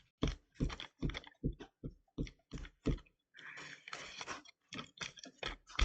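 Glue stick rubbed on paper in quick short strokes, a run of scratchy rubs about three or four a second with a longer steady rub in the middle.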